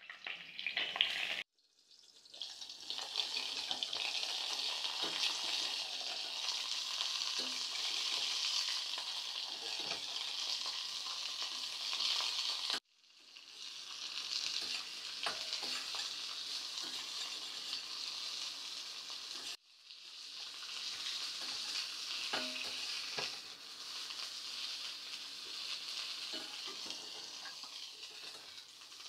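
Whole green chilies frying in hot oil in a carbon steel wok: a steady sizzle with occasional light clicks of a fork turning them against the pan. The sizzle drops out abruptly a few times and picks up again.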